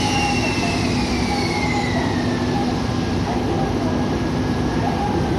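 Class EF65 electric locomotive running light: a steady low hum with a thin whine that falls in pitch over the first couple of seconds, then levels off.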